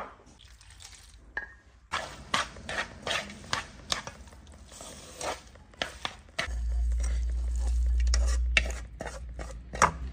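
Long chopsticks clicking and scraping against a metal basin as cold noodles dressed with chili oil are tossed and mixed, a quick irregular run of clicks. A low rumble comes in past the middle and lasts a couple of seconds.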